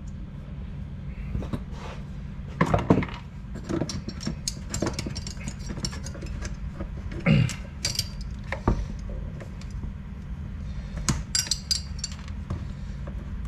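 Metal hand tools clicking, scraping and knocking against the piston and small parts of a Makita concrete saw engine as the piston pin clip is pried out with flat screwdrivers, in irregular clicks with a few louder clatters, over a steady low hum.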